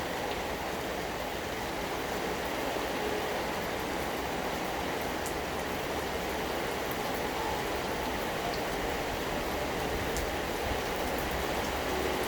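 Steady rain falling, an even hiss with a few faint, sharp drip ticks scattered through it.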